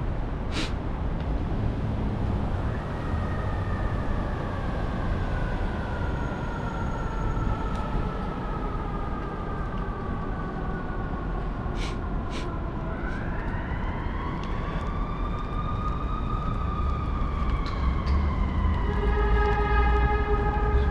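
Emergency vehicle siren wailing slowly, sliding down in pitch, then rising and falling again, over a rumble of city traffic. A steady horn blast comes in near the end.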